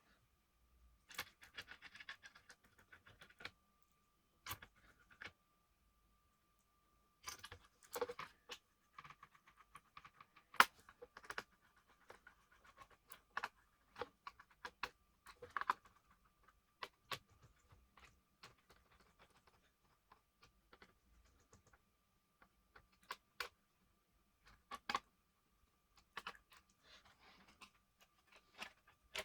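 Scattered clicks, taps and light rattles of small tools and parts being handled while working on an Asus K550L laptop, in irregular clusters with short quiet gaps and one sharper click about ten seconds in. A faint steady high tone runs underneath.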